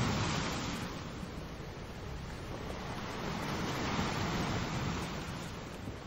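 Sea waves breaking and washing against rocks along a rocky shore. The surf surges loudest at the start, eases off, then swells again about four seconds in.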